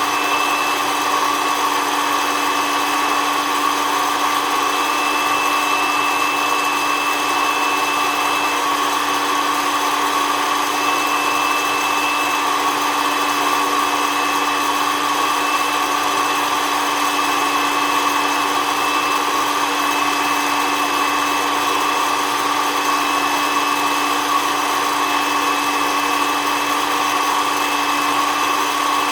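SOUYI SY-121N hot-air coffee roaster running steadily, its fan motor giving a constant whine over a blowing hiss.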